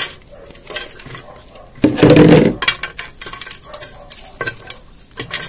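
Rustling and clicking of a plastic plant pot and crumbly potting substrate being handled over a metal basin as an orchid is unpotted, with one louder clatter about two seconds in.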